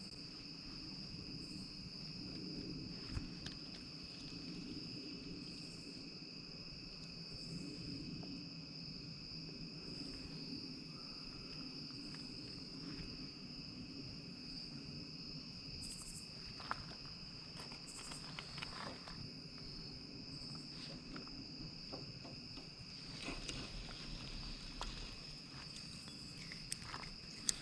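Steady chorus of insects: a continuous high trill with a fainter lower one beneath it. There are faint scattered clicks, and a few soft knocks near the end.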